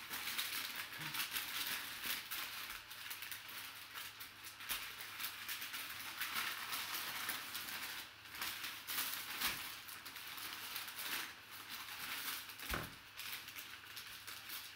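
Brown kraft packing paper crinkling and rustling as hands unwrap it from around a basketball: an unbroken run of papery crackles with a few louder crackles scattered through.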